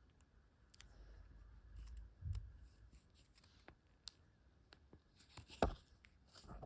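Hands handling small plastic parts and packaging: scattered light clicks and rustles, a soft thump about two seconds in, and a sharper click a little before the end.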